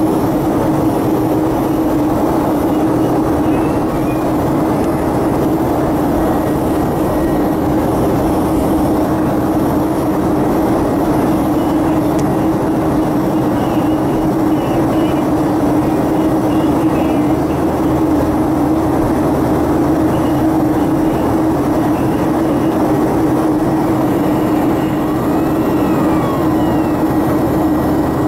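Steady cabin noise inside a Boeing 737 airliner in flight: the jet engines and the rush of air over the fuselage, with a constant low hum under an even roar.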